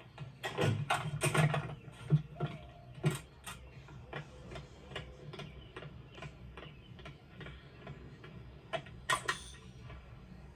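Irregular sharp clicks and knocks of small hard objects: a quick flurry in the first second and a half, a single knock about three seconds in, scattered lighter ticks, and a fast double clatter about nine seconds in.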